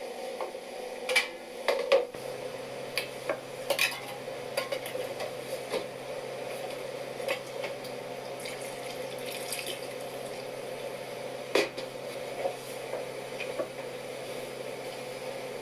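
A utensil knocking and clinking against a pot, with a string of sharp clinks and one loud knock near the end, over a steady low hum.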